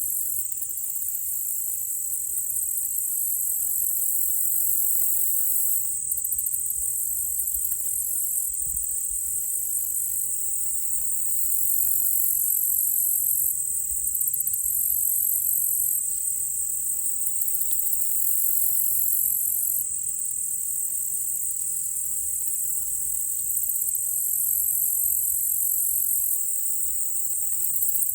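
A chorus of insects trilling: a steady high-pitched drone, with higher, pulsing layers that swell and fade every few seconds.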